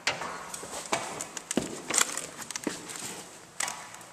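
Footsteps with irregular sharp clicks and knocks, several a second and unevenly spaced; no engine is running.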